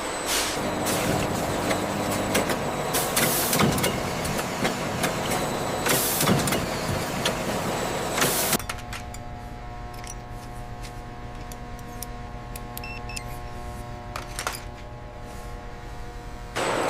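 Factory machinery: dense clattering and clicking with a few short hissing blasts, then an abrupt change about eight and a half seconds in to a quieter, steady machine hum made of several held tones.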